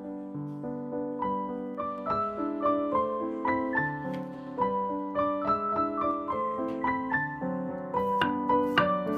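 Background piano music: a gentle melody of single notes over chords. Near the end, a few sharp knife cuts on a wooden cutting board, slicing a garlic clove.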